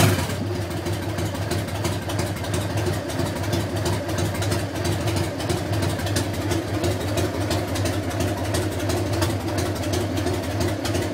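1994 Harley-Davidson Heritage Softail FLSTN's 1340 cc Evolution V-twin idling steadily.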